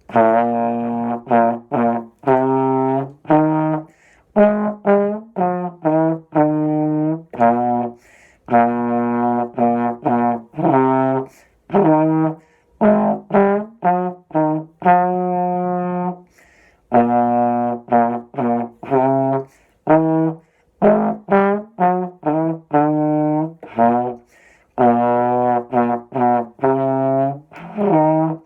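Solo trombone playing a melody of separate tongued notes, some short and some held for about a second, with brief pauses for breath between phrases.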